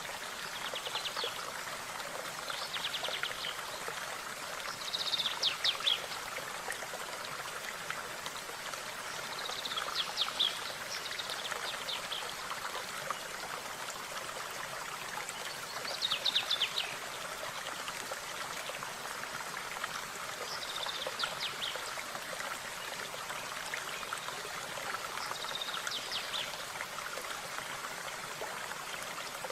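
Steady rush of a flowing stream, with a small songbird singing short, high trilled phrases every few seconds over it.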